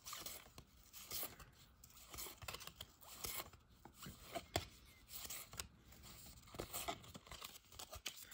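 Cardboard trading cards (1992-93 Upper Deck hockey cards) sliding and rubbing against each other as a stack is thumbed through one card at a time, in faint, irregular swishes and scrapes.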